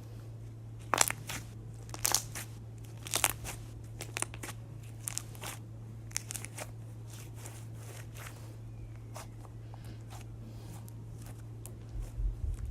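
Homemade crunchy slime being squeezed and pressed by hand, giving sharp crackling pops. The loudest come about one, two and three seconds in, then thinner ones up to about seven seconds, all over a steady low hum.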